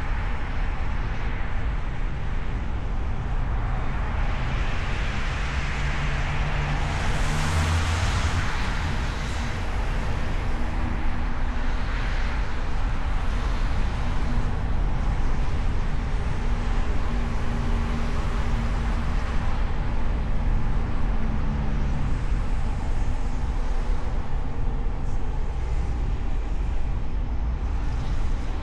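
Road noise from a hood-mounted camera on a moving car: steady tyre and wind rumble with engine hum, and other traffic mixing in. About seven to eight seconds in, a brief louder swell rises and fades.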